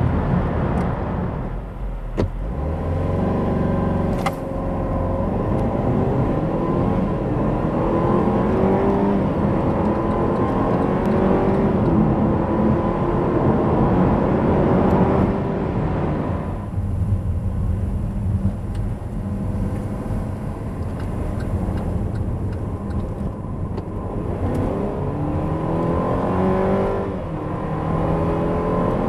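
Opel Insignia GSi accelerating hard, its engine note climbing through several upshifts. About halfway through it eases off and runs lower and steadier, then climbs again near the end.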